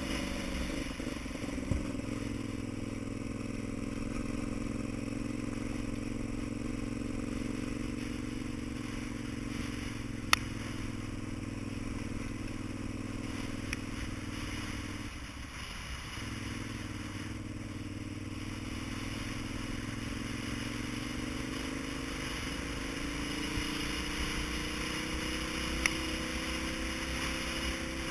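Vehicle engine running steadily under way, stumbling once about halfway through, where its note drops out for about a second before picking back up: an engine hiccup. Its pitch rises gradually near the end. A few sharp clicks stand out over it, the loudest a third of the way in.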